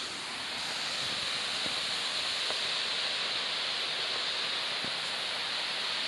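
Steady rush of falling water from a waterfall, an even hiss that runs without pause.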